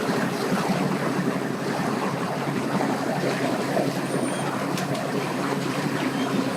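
An engine running steadily at idle, a constant low hum under a rushing, water-like noise.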